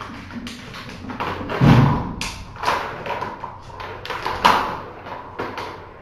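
A kitten pouncing and scrambling on a floor toy: a string of knocks and scuffs, with a heavy thump just under two seconds in and another loud knock about four and a half seconds in.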